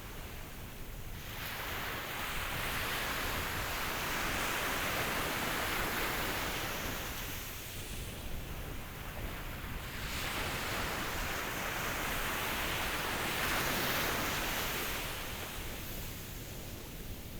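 Ocean surf: a rush of waves that swells and ebbs slowly, building twice, with the louder stretches about a third of the way in and again past the middle.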